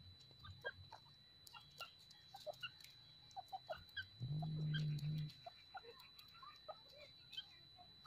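Grey francolins foraging on stony ground among dry leaves: faint, scattered clicks and rustles of pecking and scratching. About four seconds in, a low steady hum lasts about a second.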